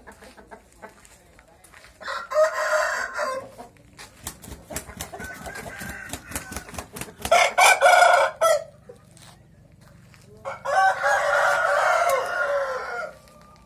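Caged young fighting-cock roosters crowing three times, the last crow the longest, with some light clicking between the first two crows.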